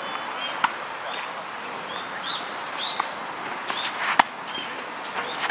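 Tennis rackets striking the ball during a rally, a sharp pop three times: about half a second in, about three seconds in, and loudest just after four seconds. Birds chirp repeatedly throughout.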